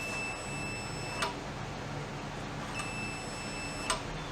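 Multimeter continuity beeper sounding a steady high tone while the level sensor's relay contacts are closed, cutting off with a click a little over a second in as the contacts open. It sounds again for about a second near the end and stops with another click, tracking the float moving the relay open and closed.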